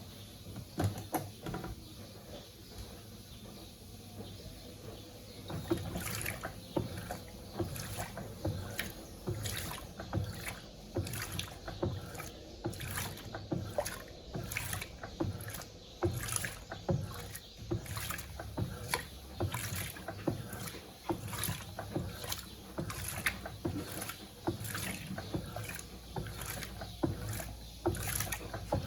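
Electrolux LTC07 top-loading washing machine agitating towels in its tub. After a quieter opening stretch, water sloshes in repeated uneven strokes from about six seconds in.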